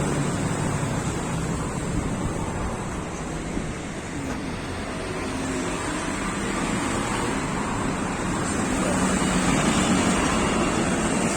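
Steady motor vehicle engine and road noise, with a low wavering hum under a broad rushing hiss, growing slightly louder over the second half.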